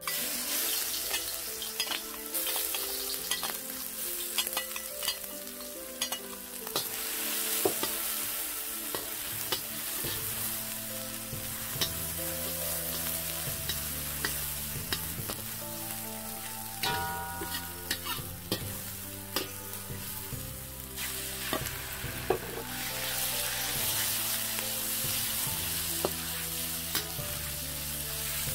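Chopped chilies and garlic sizzling in hot oil in a wok, with a metal spatula scraping and clicking against the wok as the food is stir-fried.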